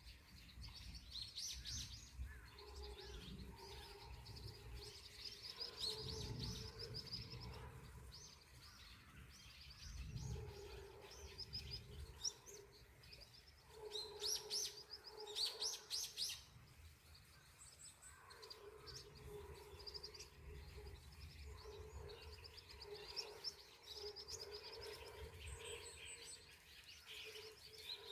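Small songbirds chirping and singing in quick high trills, phrase after phrase, with the loudest bursts around the middle.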